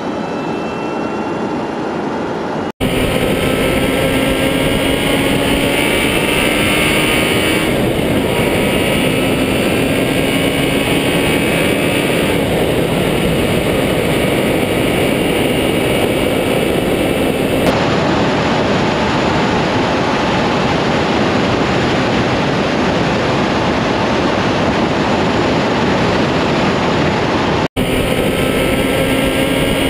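A road vehicle driving at speed: steady wind and road noise, with a faint engine note sliding up and down underneath. The sound cuts out for an instant twice, about three seconds in and near the end.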